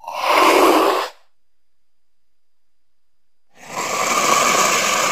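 Cougar hissing twice: a short hiss of about a second, then a longer one starting about three and a half seconds in.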